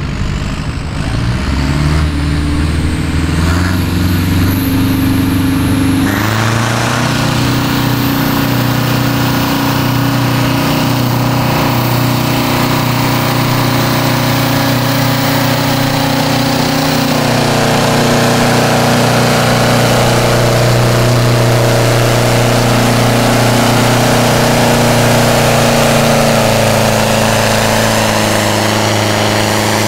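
Zetor tractor's diesel engine working at full load as it pulls a weight-transfer sled. It revs up over the first six seconds, then runs steadily at high revs.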